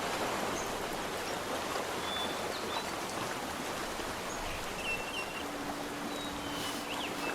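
Steady rushing of water, with a few short, high chirps scattered through it and a low steady hum joining about five seconds in.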